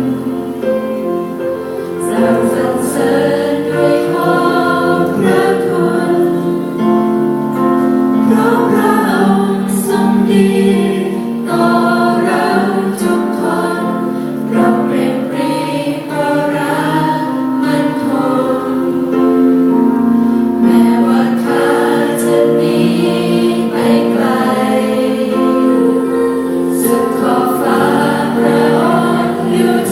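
A youth choir singing in several-part harmony, with sustained, overlapping voices running without a break.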